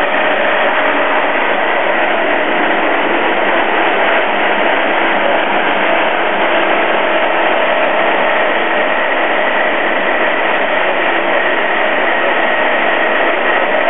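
Machinery running in a loud, steady drone, with a constant high whine through it and no distinct cracks or impacts.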